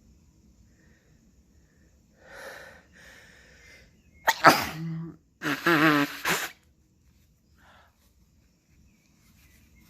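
A woman with a head cold sneezing: two gasping in-breaths, then two loud sneezes in quick succession about four and five and a half seconds in.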